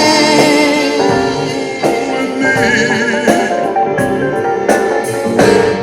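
Live soul band playing the closing bars of a song: held chords and a wavering held vocal note, punctuated by a string of sharp accented drum and cymbal hits, the last of them near the end.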